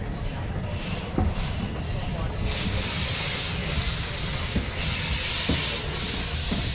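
Bagnall 0-6-0 saddle tank steam locomotive moving slowly at close range with its cylinder drain cocks open. Steam hisses from them over a low rumble, and from about two and a half seconds in the hiss gets louder, with a high whistling note in it.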